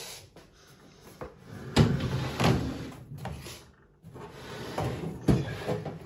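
Russell Hobbs flatbed microwave being slid across a laminate worktop and butted up against the wall: its feet scrape, with sharp knocks about two seconds in and another near the end.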